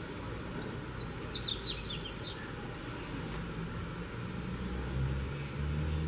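Double-collared seedeater (coleiro) singing one quick phrase of its wild 'mateiro' song. The phrase is a run of rapid, sliding high notes lasting about two seconds, starting just after the beginning. A steady low rumble runs underneath and rises to a louder low drone near the end.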